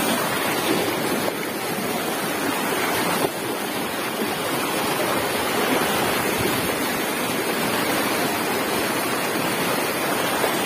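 A shallow river rushing over rocks and small rapids: a steady, unbroken rush of water.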